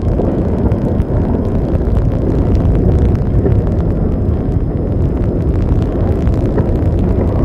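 Steady low rumble of wind buffeting the camcorder microphone, with no clear engine note in it.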